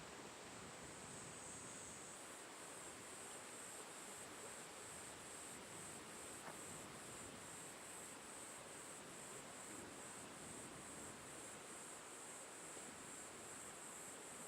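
Faint, steady hiss of wind rustling through the valley, with a high insect song in rapid, even pulses joining about two seconds in.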